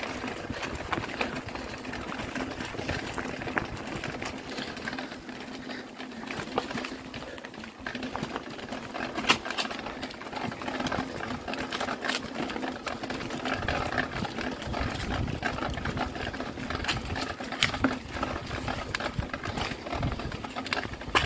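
Mountain bike rolling along a stony dirt track: a steady, rapid mechanical ticking with scattered sharp rattles and knocks from the rough ground.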